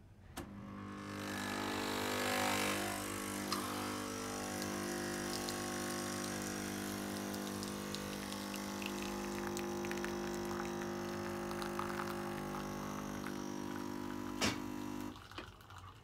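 Nespresso Creatista Plus pod machine brewing an espresso shot: its pump starts with a click and hums steadily with a hiss. A sharp click comes near the end, and the pump cuts off about a second before the end.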